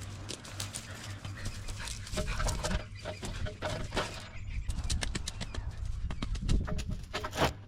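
Mini excavator engine running steadily, with a string of irregular knocks and clicks over it, busier from about two seconds in.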